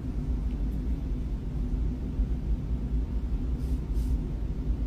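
Steady low rumble of background noise, with two faint soft ticks near the end.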